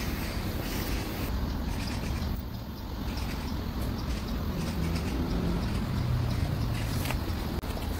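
Steady low outdoor rumble, with a sharp click near the end as shards of broken mirror are picked up from the dirt by hand.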